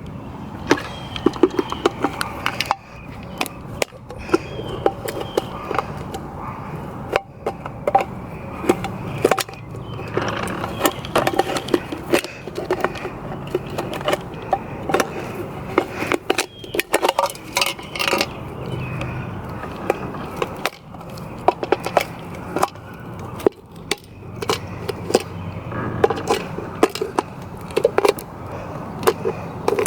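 Irregular metal clinks, knocks and scraping as a shot spray paint can is worked open with tools to get at its mixing ball.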